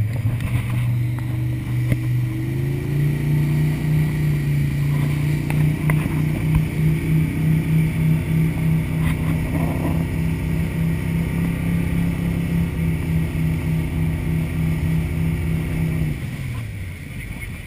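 Speedboat engine running under load while towing an inflatable ring, its note stepping up in pitch about two to three seconds in and then holding steady. Water rushes and sprays in the wake throughout. Near the end the engine note drops away as the throttle eases.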